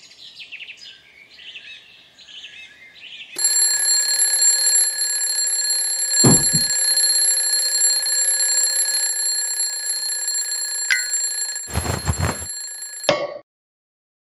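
Birds chirp for about three seconds, then a twin-bell alarm clock starts ringing, loud and unbroken. Two thumps land while it rings, and the ringing cuts off suddenly about a second before the end.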